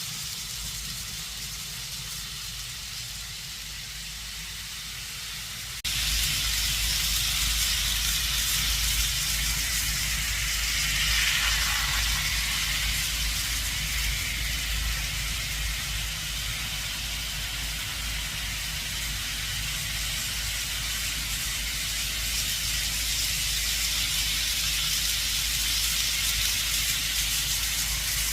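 Kato model train running on the layout's track, a steady rolling hiss of wheels and motor. It steps up louder about six seconds in and swells briefly around twelve seconds in, as if a train passes close.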